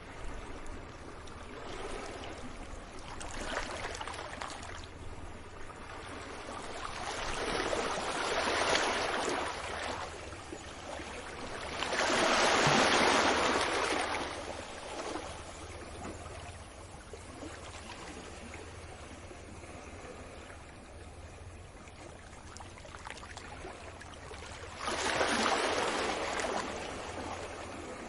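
Small waves breaking and washing up a beach, one swell of surf every few seconds, the biggest about halfway through, over a steady low rumble.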